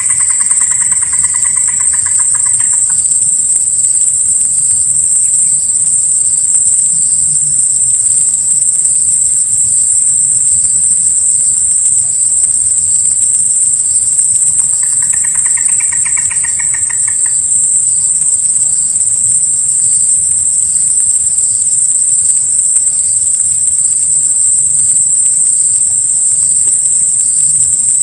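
Loud, steady high-pitched drone of forest insects. Two pulsing calls of about two and a half seconds each rise above it, one right at the start and one about halfway through.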